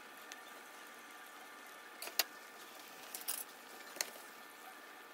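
Donut dough deep-frying in a pan of hot oil: a faint, steady sizzle with a few small clicks about two, three and four seconds in.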